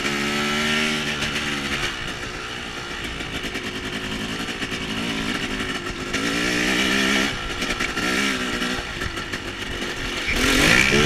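Off-road vehicle engines running and revving in spells, the pitch climbing and falling, with a sharp rev-up near the end.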